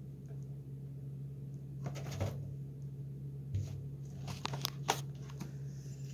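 A cat pawing and scratching at a door stopper: a rustling scrape about two seconds in, then a quick run of sharp clicks and knocks near the middle.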